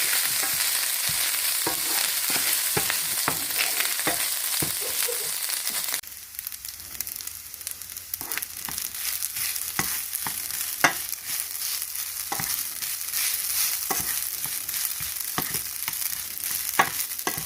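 Garlic rice frying in a pan, a steady sizzle, with a spatula scraping and tapping against the pan as it is stirred. The sizzle drops sharply about six seconds in, after which the spatula taps stand out more.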